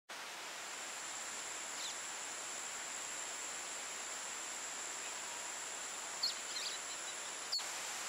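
Tropical forest ambience: a steady high-pitched insect drone over an even hiss, with a few short bird chirps, one about two seconds in and a small cluster near the end.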